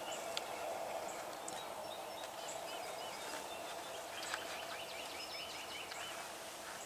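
Open-field ambience: a steady background hiss with several short, rapid trilling bird calls, each about a second long and a few seconds apart.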